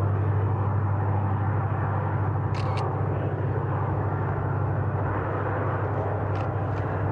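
Diesel freight locomotives running under power, a steady low engine drone with the rumble of the train.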